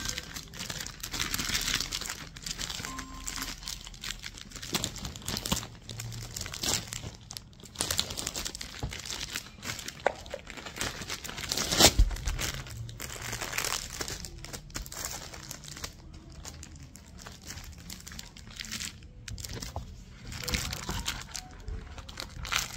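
Clear plastic sleeve crinkling and rustling as it is handled around a hardbound book, in an irregular run of crackles, with one louder thump about halfway through.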